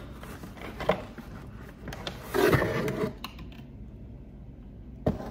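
Cardboard box and packaging being handled while an egg incubator is unpacked: rustling and scraping with a few sharp knocks, the loudest a rustle of most of a second just before the middle.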